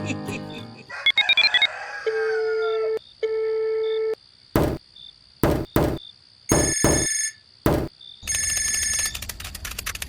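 Electronic ringing tones: a short rising flourish, then two steady beeps of about a second each, followed by a string of sharp clicks and short bright ringing tones.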